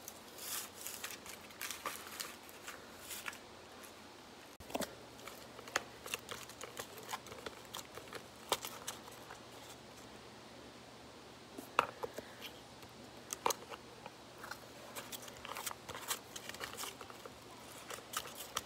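Cardboard gas mask and helmet being handled: irregular light taps, clicks and rustling of cardboard, with a few sharper knocks.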